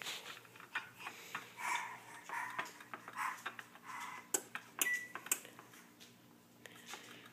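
Light metal clinks and taps of a small wire whisk and other kitchen utensils knocked about on a countertop by a baby's hands, irregular and scattered, a few sharper knocks about four to five seconds in.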